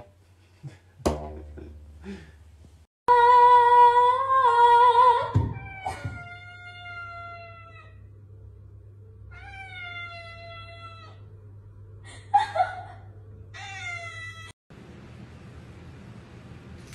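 A cat meowing: a long, loud meow of about two seconds, followed by several shorter meows that drop in pitch at the end.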